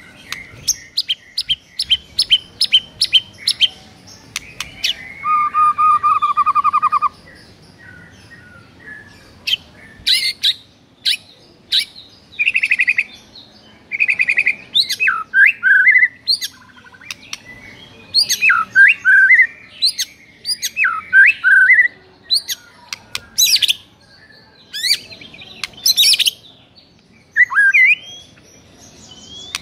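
White-rumped shama (murai batu) singing a loud, varied song of rapid repeated notes, a rolling trill and quick sharp whistles and chattering phrases. It is the aggressive fighting song (narung) of a male answering a training recording of another bird's song.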